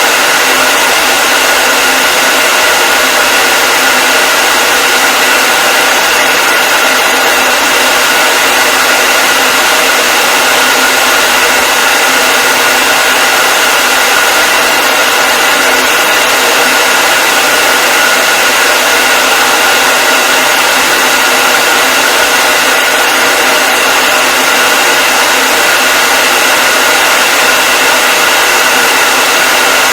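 Hair dryer running continuously: a steady rush of blown air with a high, even whine from its motor and fan, unchanging throughout.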